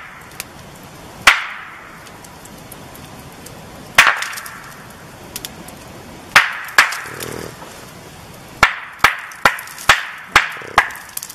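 Two rocks knocked sharply together, a clack-clack repeated: two single knocks a few seconds apart, then a pair, then a quick run of six, each with a short echoing tail.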